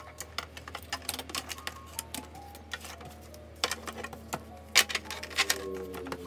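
Plastic pens and markers clicking and clattering against each other and the desk as they are handled, a rapid run of small clicks with a couple of louder clacks a little past the middle.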